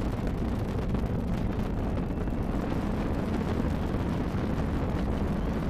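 SLS rocket's four RS-25 core-stage engines and two solid rocket boosters firing in ascent: a steady, deep rumbling roar with no breaks.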